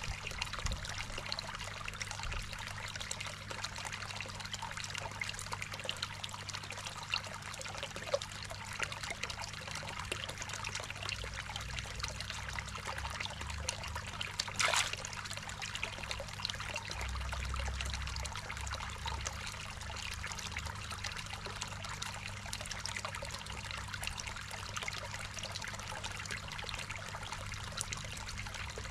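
Water trickling steadily into a garden koi pond, with a low steady hum underneath. One sharp click comes about halfway through.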